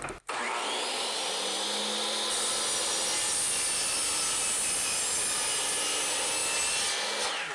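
Electric mitre saw started up, its motor whining up to speed in about a second. The spinning blade then saws through a 1x6 board for several seconds. Near the end the trigger is let go and the motor begins to wind down.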